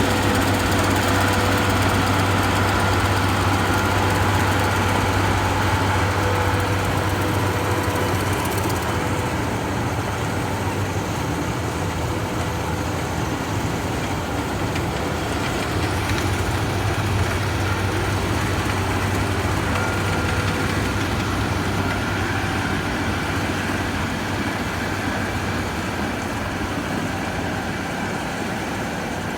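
Engine of a rice harvesting machine running steadily with a low hum, easing off slightly toward the end.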